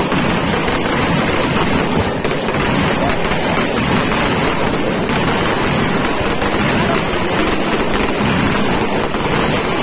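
Ground fireworks burning: a steady, dense crackling hiss of many small bursts with no single big bang.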